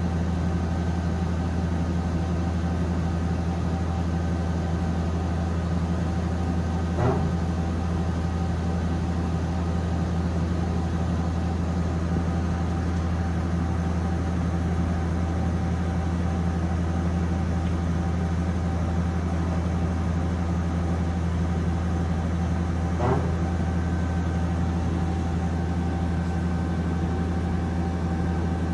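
Okuma Captain L470 CNC turning center running a cycle with its chuck spinning: a steady machine hum with a thin, higher whine over it. Two short clacks sound, about a quarter of the way in and again near the end.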